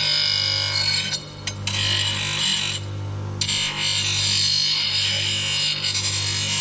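Ryobi 250 W bench grinder fitted with a buffing wheel, running with a steady motor hum while the rounded end of a metal strut is pressed against the buff, giving a hissing rub. The rubbing lets up twice, about a second in and again around three seconds in, as the part comes off the wheel.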